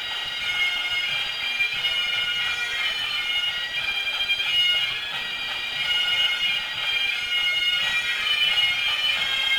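Great Highland bagpipes of a marching pipe band playing a tune: steady drones under the chanter's changing melody.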